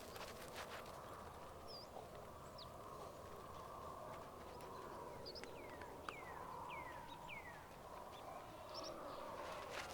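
Faint outdoor country ambience with a few short bird calls. In the middle comes a run of four quick down-slurred whistles, with a couple of brief high chirps before and after them.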